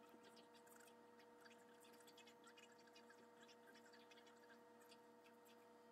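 Near silence: a faint steady electrical hum, with faint light clicks and ticks of a plastic model-kit sprue being handled.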